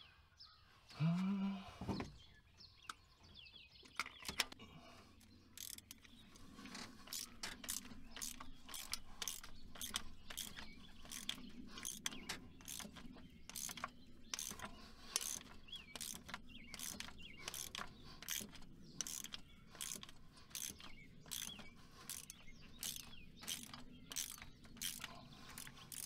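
Socket ratchet wrench clicking in steady strokes, about two clicks a second from about five seconds in, as a stubborn spark plug is worked back and forth out of the cylinder head.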